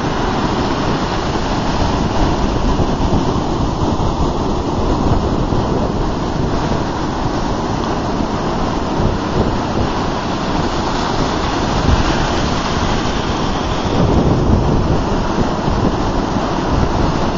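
Ocean surf breaking and its wash running up the beach: a continuous rushing of water over a deep rumble, swelling slightly about fourteen seconds in.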